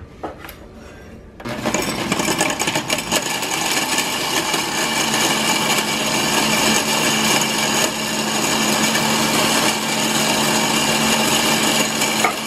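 Small electric grinder running, its blades grinding whole spices (cumin, cloves, bay leaves, a cinnamon stick) into powder. The motor starts about a second and a half in and then runs steadily with a low hum under a loud whirr.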